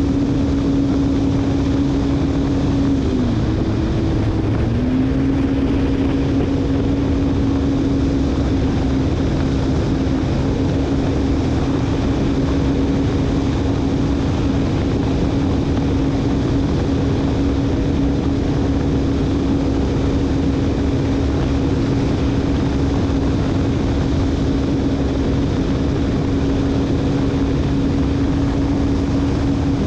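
Jet ski engine running steadily at full throttle, near top speed of about 125 km/h, with a high, even engine note. The note dips briefly about three seconds in and comes back up about two seconds later.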